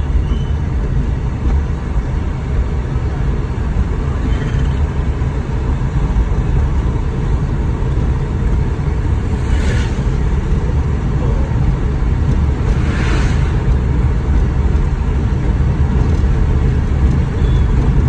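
Car cabin noise while driving slowly on a wet road: a steady low rumble of road and engine. Two brief hissing swooshes come about ten and thirteen seconds in.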